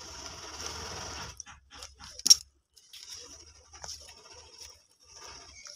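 Hand-working a gold-braided leather sandal with an awl and thread: a high scratchy rasp drawn out in several stretches, with scattered small clicks and one sharp click a little over two seconds in.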